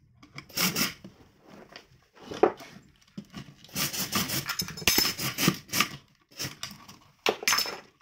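Impact wrench run in short bursts, turning the spring balancer's worm gear to wind the wire rope into the drum, with knocks and rattles from the metal housing. The longest burst, about two seconds, comes in the middle.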